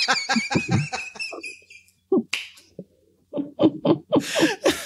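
People laughing: a burst of rapid, repeated ha-ha laughter that fades out about two seconds in, then another short round of laughter near the end.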